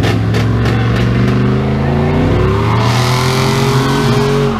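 Two pickup trucks, a Cummins diesel Dodge 3500 and a GMC 2500 gas V8, running hard under load while pulling against each other on a tow rope. Engine pitch climbs through the second half, with a rising hiss from about three seconds in.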